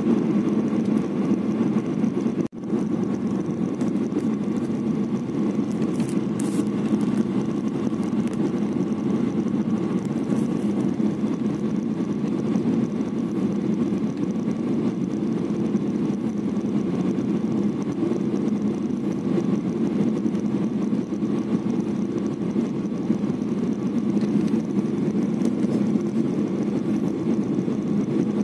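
Steady jet airliner cabin noise on final approach: the engines and rushing air make an even, deep noise with a faint steady whine above it. The sound cuts out for an instant about two and a half seconds in.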